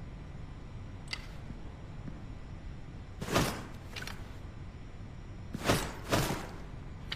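Hatchet sounds: a faint tick, then four short, sharp strokes in two pairs, each pair about half a second apart.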